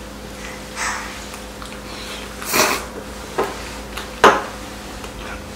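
Glass noodles from braised chicken slurped up in several short sucks, a loud one about halfway through and a sharp one about four seconds in.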